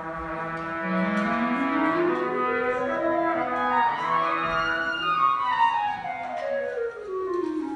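Live classical instrumental music from a small church ensemble: a run of notes climbs steadily and then steps back down, over sustained notes beneath.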